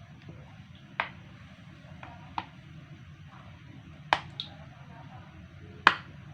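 Five sharp clicks, one after another, over a low steady hum: a kitchen sound while vegetable fritters are being made.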